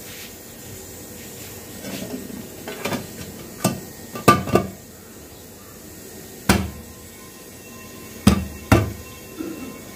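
Upturned aluminium cooking pot knocked against a steel plate, about six sharp metallic knocks in twos and ones with softer clatter before them, as the pot is tapped to release a baked cake onto the plate.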